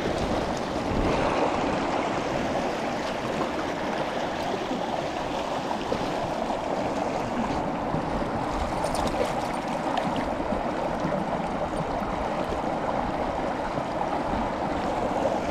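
Shallow mountain trout stream rushing over rocks in a fast riffle: a steady, even wash of water.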